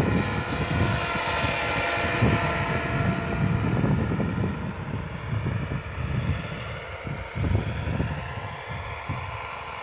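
Radio-controlled scale Huey (UH-1) model helicopter in flight: a steady whine from its motor and rotor, the pitch sliding down in the first few seconds as it flies past, then fading as it moves away.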